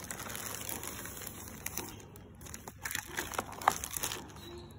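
Thin plastic carrier bag crinkling and rustling as hands dig through it and handle a foam takeaway box, with a few sharper crackles and taps in the second half.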